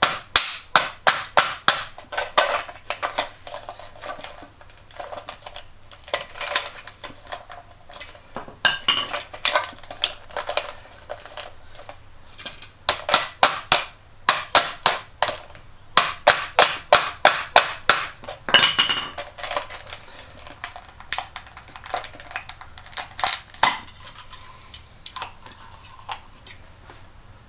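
Claw hammer tapping repeatedly on the hard plastic body of a vintage Masters of the Universe Ram Man figure, in quick runs of light strikes about three or four a second with short pauses between, to crack the glued seam of the skirt. Smaller plastic clicks follow near the end as the split parts are handled.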